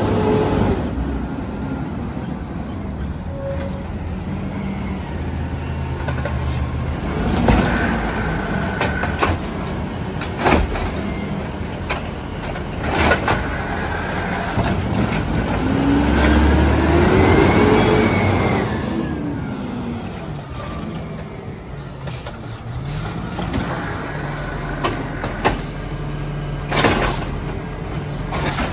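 Peterbilt 320 automated side-loader garbage truck running at the curb, its engine rising and falling in pitch about midway through. Several short air-brake hisses and clunks come through, with the arm starting to work near the end.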